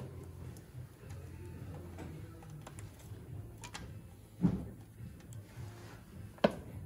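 Light clicks and knocks of a compression tester's hose and threaded adapter being fitted into an engine's spark-plug well by hand, with two louder clicks, one midway and one near the end, over a low steady hum.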